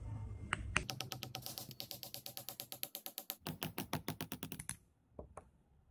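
Hammer tapping rapidly on a thin steel strip laid on a wooden block: a quick, even run of sharp metallic taps, about ten a second, with a short break about three seconds in. Two single clicks follow near the end.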